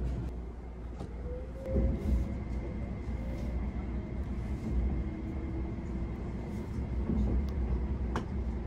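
Interior running noise of the Tobu SPACIA X (N100 series) electric limited express in motion: a steady low rumble with a faint whine that rises in pitch about a second in. A single sharp click near the end.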